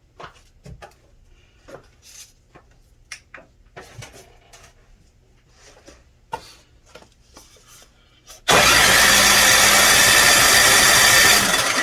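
Small snowblower engine catching suddenly and running loudly and steadily for about three seconds, then dying away. Scattered light clicks and knocks of handling come before it.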